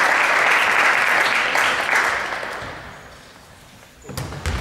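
Spectators and bench clapping in a sports hall, dying away over the first three seconds. About four seconds in, a basketball bounces twice on the court.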